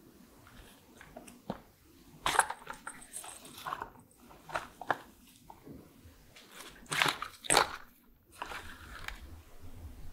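Paper boxes of washi tape rolls being handled and set down on a cloth-covered surface: a string of short knocks and rustles, loudest about two seconds in and again around seven seconds.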